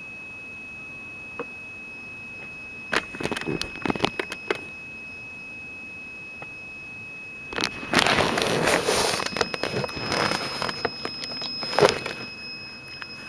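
Irregular bursts of crackling static over a steady high-pitched electronic whine, with a longer, louder stretch of crackle in the second half.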